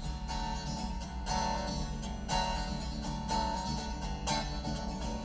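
Background music: a plucked acoustic guitar playing steady, evenly spaced notes.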